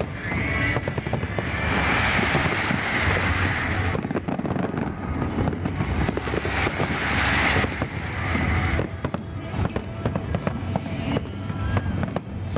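Aerial fireworks shells bursting in quick, irregular succession, with dense crackling between the bangs.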